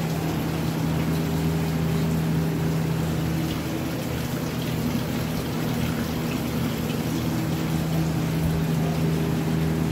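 A thin stream of spring water falling steadily from a spout onto a stone basin, over a steady low hum.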